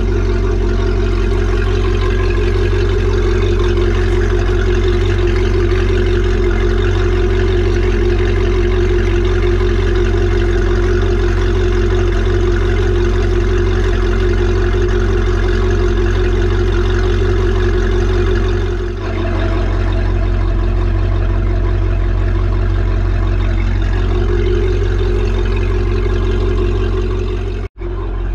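MerCruiser 5.7 V8 sterndrive engine idling steadily at operating temperature on a flush muff while descaling fluid is drawn through its cooling system. The sound dips briefly about two-thirds of the way through and cuts out for a moment near the end.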